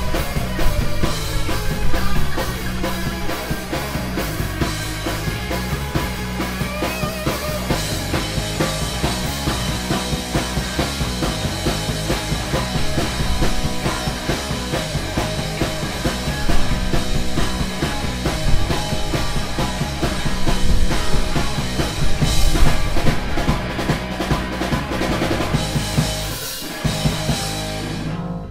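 Live rock band playing loud: electric guitars, bass and a drum kit with a driving beat. The band stops together on a final hit at the very end.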